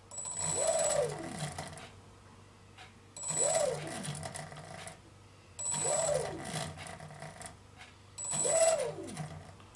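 Two contra-rotating brushless motors with propellers, driven through ESCs from one receiver, spun up and back down four times as the throttle is blipped. Each burst is a quick rising whine that falls away as the props coast down, with a thin high-pitched tone at its start.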